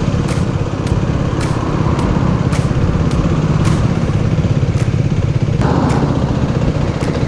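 125 cc single-cylinder motorcycle engine running steadily at low revs, heard from the rider's own bike.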